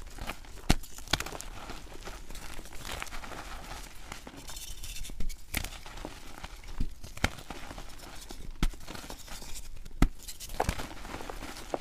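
Hands crushing and breaking coloured gym chalk blocks: a dry, crunchy crumbling with sharp snaps scattered throughout as pieces break off and powder falls.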